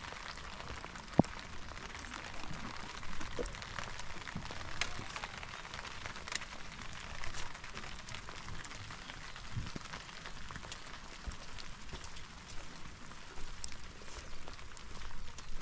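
Steady rain falling, with scattered small drop ticks and one sharp click about a second in.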